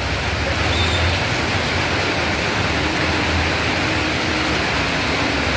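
Heavy rain pouring down on a street, a loud steady hiss, with a low motorbike engine hum beneath it.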